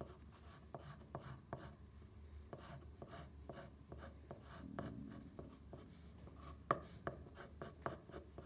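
Pencil shading on paper: faint, irregular scratchy strokes of graphite, with one sharper, louder stroke about two-thirds of the way through.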